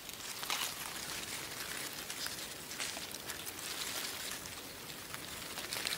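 Bare feet stepping slowly on grass strewn with dry leaves, the leaves crackling and rustling under each step. There are a few soft crunches, spaced a couple of seconds apart.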